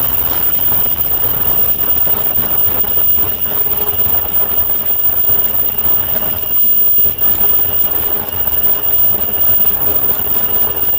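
Automatic elastic-loop face mask making machine running at production speed: a dense, rapid mechanical clatter of fine ticks with a steady high-pitched whine throughout.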